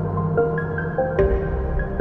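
Background music: a slow run of soft notes over a steady low bass, with a sharp accent about a second in where the bass changes.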